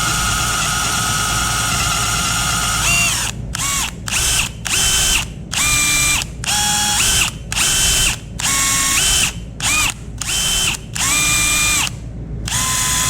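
Power drill turning a 7/8-inch hole saw through a fuel tank sending unit: it runs steadily for about three seconds, then in about ten short trigger bursts, each spinning up to a steady whine and stopping.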